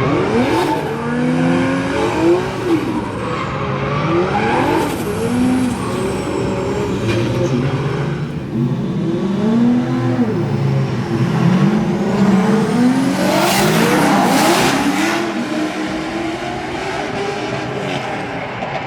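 Toyota Supra drift car's engine revving hard, its pitch swinging up and down repeatedly as the driver works the throttle through a drift, with tyre noise under it. There is a louder rush of noise about thirteen to fifteen seconds in.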